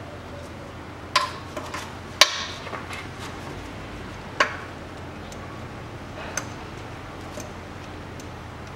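Scattered sharp metallic clicks and knocks of a ratchet wrench being handled against the underbody metal at the transfer case fill plug, about half a dozen spread over the first six seconds, the loudest about two seconds in.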